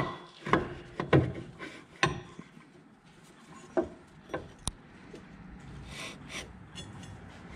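Scattered light knocks and clinks with some rubbing as a metal drive pulley is handled, slid onto the engine shaft and its rubber belt worked into the groove.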